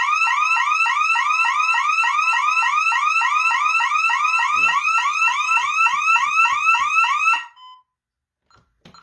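Honeywell Vista 15P alarm siren sounding a fast rising yelp, about six sweeps a second, for a verified cross-zone burglary alarm tripped by two motion sensors. It cuts off suddenly about seven seconds in, followed by a short beep and a few faint clicks.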